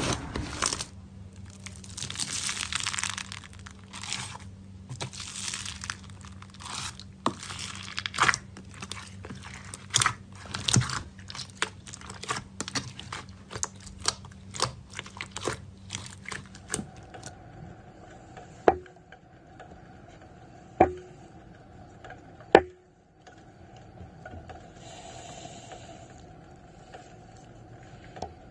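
Slime being squeezed and pressed by hand, crackling with many small pops and clicks. After about 17 seconds it goes quieter, with three sharp pops a couple of seconds apart.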